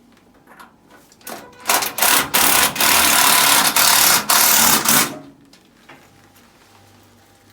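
Handheld power tool, likely a driver or drill used in the fan removal or installation, run loud in several short bursts, triggered on and off for about three seconds in the middle.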